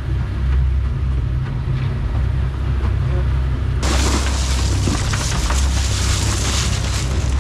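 Low, steady rumble of a boat running at sea, its 150 hp outboard and the hull on the water. About four seconds in, a bright hissing noise abruptly joins it.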